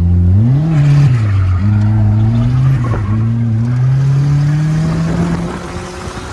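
Turbocharged Nissan D21 Hardbody mini truck's engine revving hard under load on a drift run: the pitch jumps up about half a second in, drops back, then climbs slowly before falling away and fading near the end.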